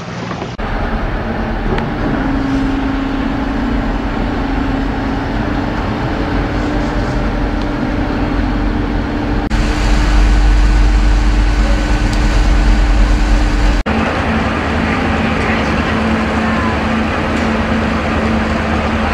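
Large engines running with a steady hum. The sound changes abruptly twice, and in the middle it becomes a deeper, louder rumble for about four seconds.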